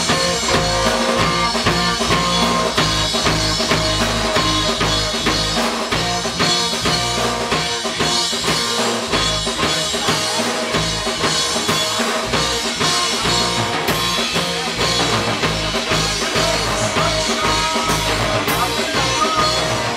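Live rock band playing: electric guitars over a drum kit, with regular drum hits throughout.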